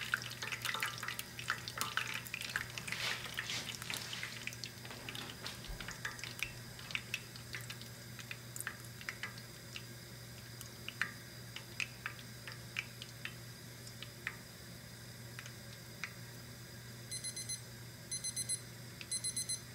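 Hot corn oil in a pan crackling and popping as it heats for the second fry, the pops dense at first and thinning out after a few seconds, over a steady low hum. Near the end a digital thermometer alarm starts beeping in quick repeated bursts, signalling that the oil has reached its 350°F target.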